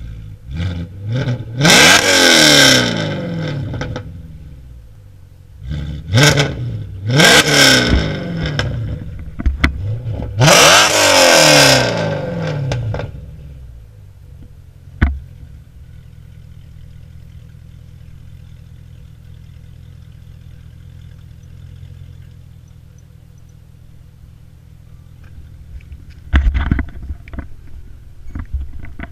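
Supercharged 3.0 V6 of an Audi S5 through an HMS aftermarket exhaust, revved from idle: a few quick blips, then three hard revs, each climbing and dropping back. It then settles to a steady idle, and near the end gets louder as the car pulls away.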